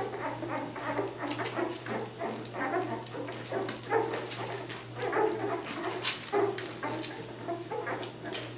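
Nine-day-old Labrador retriever puppies nursing, with frequent short squeaks, grunts and whimpers mixed with small clicks.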